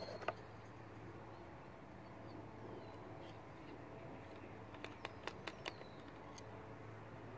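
Faint outdoor background with a few light clicks and taps about five seconds in, from a muzzleloader being handled while it is loaded, and faint bird chirps.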